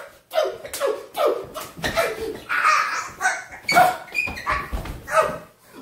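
A man's short, repeated grunts and yelps of strain, one cry after another, each falling in pitch, with a few low thumps underneath.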